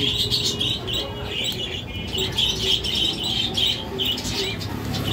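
Small caged birds chirping continuously, a rapid string of short high chirps several a second.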